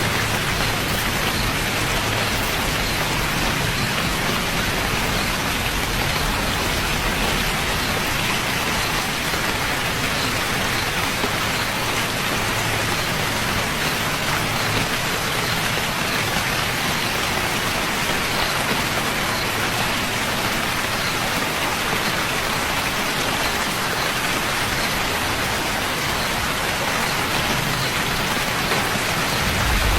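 Steady rain falling, a dense, even hiss of many drops with no pauses.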